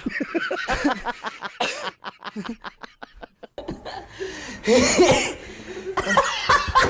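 People laughing in quick bursts, with a man's harsh cough breaking in about five seconds in.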